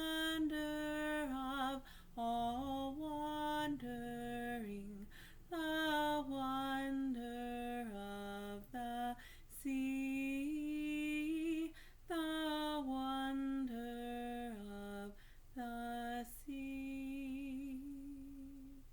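A woman singing a song unaccompanied, in short phrases with brief pauses between them, ending on a long held note with vibrato.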